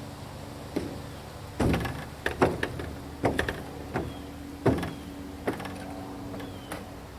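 A run of sharp knocks and clunks, about eight in a few seconds, as a wood chipper is unloaded from a pickup down a loading ramp, over a steady low hum.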